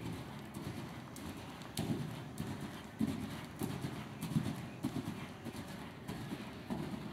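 Hoofbeats of a ridden paint horse on the sand footing of an indoor arena: a run of dull, low thuds in an uneven rhythm.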